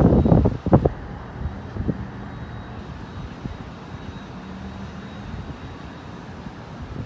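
Gusting wind buffeting the microphone, loud crackling rumbles in the first second, then a steadier low background rumble.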